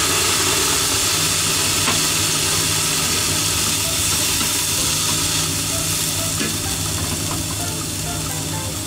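Food sizzling in a hot frying pan: a loud, steady hiss that eases a little toward the end.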